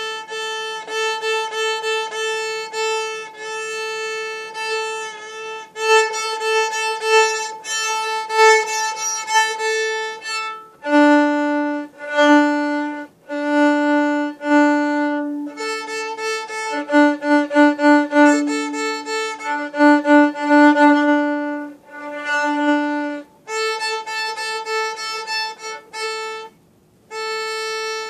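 Solo viola bowed through a simple tune: held single notes with a few short breaks between phrases, the upper notes giving way to lower ones about eleven seconds in.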